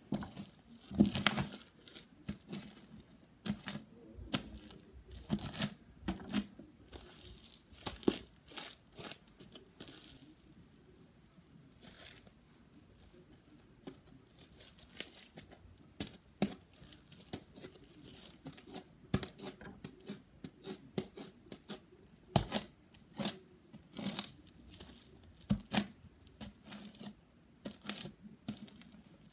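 Blue slime being squished, poked and stretched by hand, giving off irregular sticky crackles and pops, with a quieter spell about ten to fifteen seconds in while it is pulled up and stretched.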